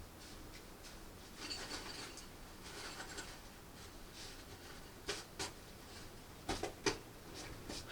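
Faint scraping and rustling of objects being handled, with a few light clicks or knocks in the second half.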